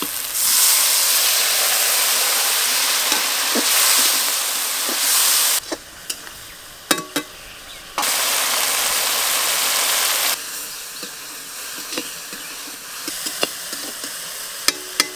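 Spiced onion-tomato masala in a metal kadai sizzling loudly as a little water is poured in. The strong hiss drops off abruptly twice and returns, and a spatula clicks and scrapes against the pan in the quieter stretches.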